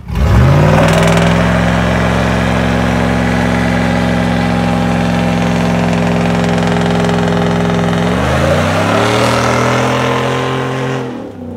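Car engine revved up sharply and held at high revs, its pitch climbing to a higher level about eight seconds in and dropping away near the end.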